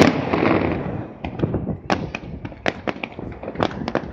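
Fireworks display: a loud aerial shell burst at the start that trails off over about a second, followed by a quick, irregular run of sharp cracks and pops from further bursts.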